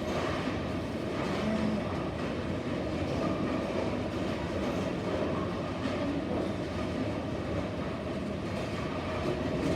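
Steady rolling rumble of a bowling alley: bowling balls rolling down the lanes and the pinsetter machinery running.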